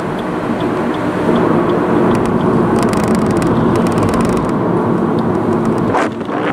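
Car cabin noise of engine and tyres on a wet road, with a turn signal ticking steadily for the first couple of seconds for a left turn. A short run of sharp clicks comes about three seconds in.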